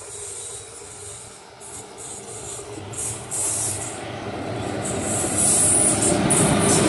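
Indian Railways electric locomotive hauling a goods train, approaching along the rails and growing steadily louder as it draws near, with a high-pitched hiss coming and going on top.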